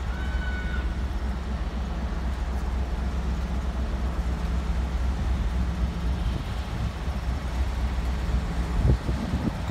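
Class 56 diesel locomotive's Ruston-Paxman 16-cylinder engine running with a steady low rumble as it approaches slowly. A brief high squeal right at the start, and a few sharp knocks near the end.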